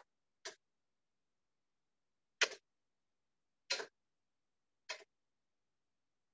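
Five short clicks and scrapes of a kitchen utensil against cookware while pasta is plated, spaced irregularly with dead silence between them, as if cut by a video call's noise suppression.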